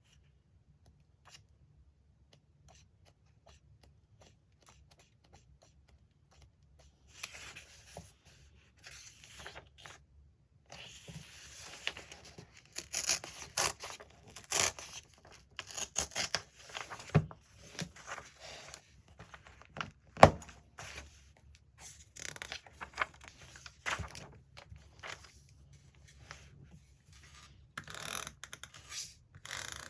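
Magazine paper being handled and cut: faint ticks at first, then, from about seven seconds in, irregular rustling and tearing with a few sharp clicks, the loudest about twenty seconds in.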